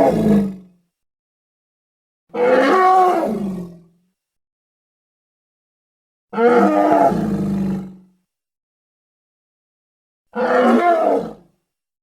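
Giant gorilla roar sound effects: the end of one roar at the start, then three separate roars about four seconds apart, each lasting one to two seconds, with dead silence between them.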